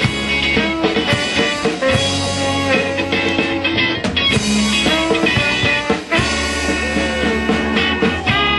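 Live rock band playing, with electric bass guitar and drums.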